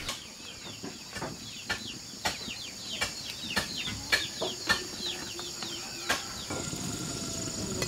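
Chickens cheeping in quick, falling chirps, with sharp knocks about once a second.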